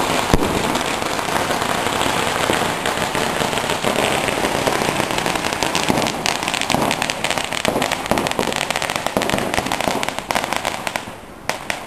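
Firecrackers going off in a dense, rapid crackle of bangs that runs on without a break, then dies down about eleven seconds in, leaving a couple of single bangs near the end.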